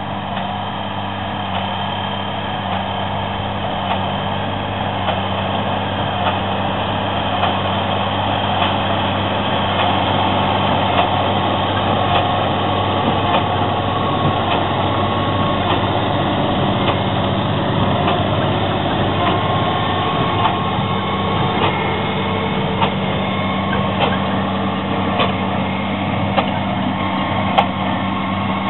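Fendt tractor pulling a CLAAS large square baler while it bales hay: a steady diesel engine drone with machinery clatter and short sharp knocks about once a second. It grows louder over the first ten seconds as the machine comes closer.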